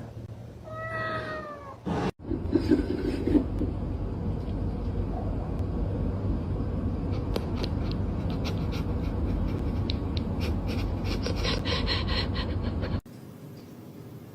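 A cat meows once about a second in, a single falling call. After an abrupt cut comes a long stretch of steady rumbling noise with scattered clicks, which stops suddenly near the end.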